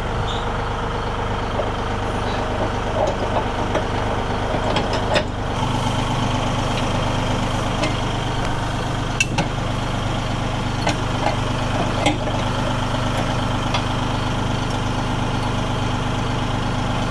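Massey Ferguson tractor engine idling steadily, with a few short sharp knocks over it.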